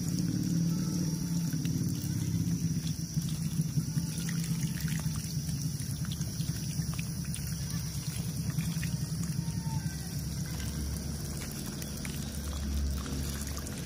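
A steady stream of water pouring and splashing over a small plastic toy tractor and log trailer held in the hand, the runoff trickling down.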